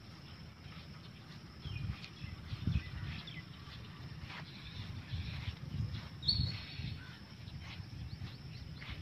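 Soft, irregular thuds of footsteps in sandals on grass, with birds calling now and then; one sharper call comes a little after six seconds in.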